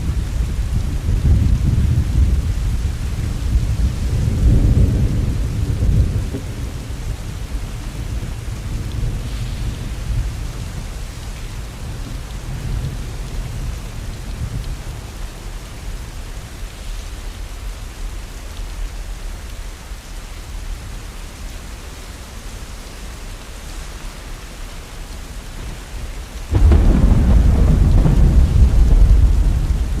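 Steady rain with thunder: a long low rumble that fades out over the first six seconds, then a sudden loud thunderclap near the end that rolls on as a heavy rumble.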